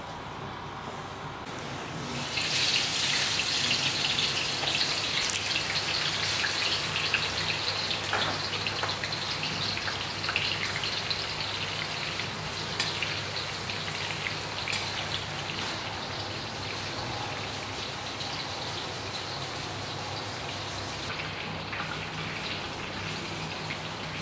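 Sliced onions sizzling in hot oil in a large steel pan. The sizzle starts suddenly about two seconds in, loudest at first with occasional sharp ticks, then settles into a softer, steady hiss over the second half.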